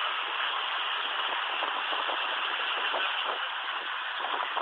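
Boat engine running steadily, heard as an even rushing noise.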